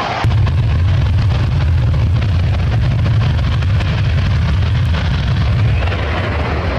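F-15E Strike Eagle's twin jet engines running at high power on the runway: a loud, deep rumble with dense crackle. It steps up suddenly about a quarter of a second in and then holds steady.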